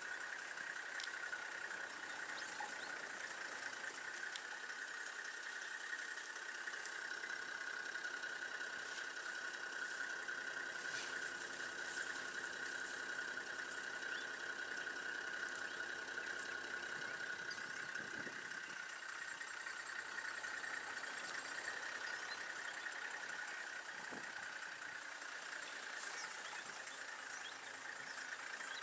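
A vehicle engine idling steadily, with a steady high-pitched buzz running over it.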